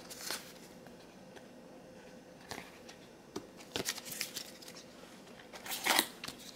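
Magic: The Gathering trading cards being moved one at a time through a small stack held in the hands: faint, scattered soft clicks and slides of card on card, with quiet between and a slightly stronger rustle near the end.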